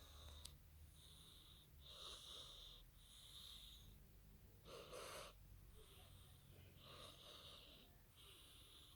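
A pet cat snoring faintly: high wheezy breaths repeating about once a second, with one louder, rougher breath about five seconds in.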